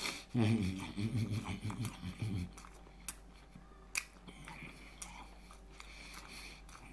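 A man's low voice mumbling with no clear words for about two seconds, then a few sharp clicks.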